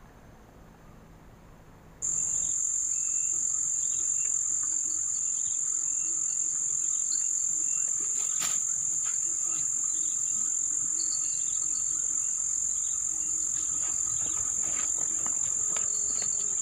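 A steady, shrill, high-pitched insect drone that starts abruptly about two seconds in and holds unchanged.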